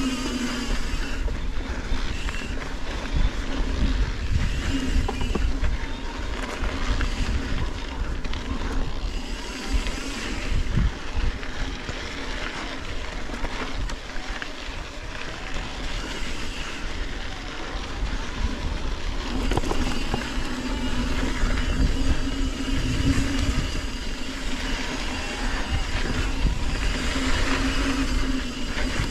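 Riding noise on a bike: wind rushing over the microphone and tyres rolling over the track, with a hum and higher buzz that come and go.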